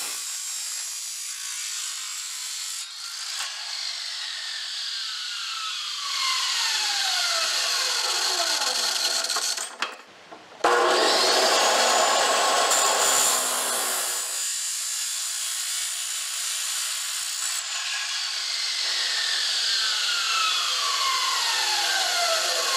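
Metal-cutting chop saw cutting aluminum stock: the motor runs with a high whine as the wheel grinds through the metal, then the whine falls slowly in pitch as the wheel spins down. After a brief lull about ten seconds in, the saw starts again with a rising whine, makes a second cut, and winds down once more near the end.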